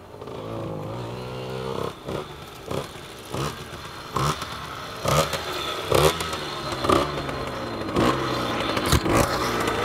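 Tuned Derbi Senda 50cc two-stroke moped engine (19 mm carburettor, aftermarket exhaust, lightly ported) running, its pitch rising about a second in and then holding fairly steady. Sharp knocks come roughly once a second over it and grow louder toward the end.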